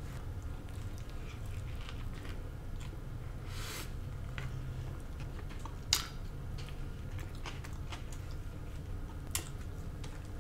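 Quiet close-miked chewing of a bacon cheeseburger, with a few soft wet mouth clicks, the sharpest about six seconds in, over a steady low hum.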